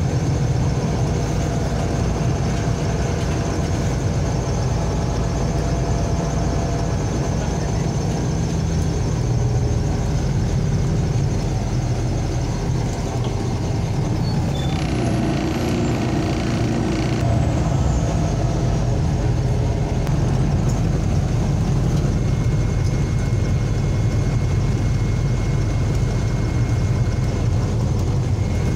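MAZ-203 city bus driving, heard from inside the passenger cabin: steady engine and road rumble with a thin high whine throughout.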